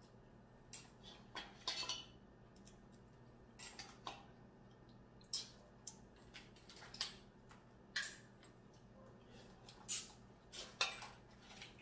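Short, irregular clicks and clinks of someone eating blue crab: shell pieces and utensils knocking against a plate, about a dozen scattered through the stretch.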